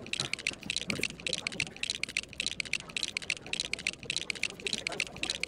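MoYu Aoshi WRM 6x6 speedcube being turned fast, a rapid, continuous stream of plastic clicks and clacks from its layers snapping into place.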